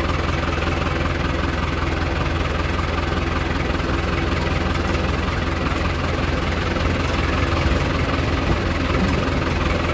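New Holland tractor's diesel engine running steadily as the tractor drives along, heard close up from the driver's seat.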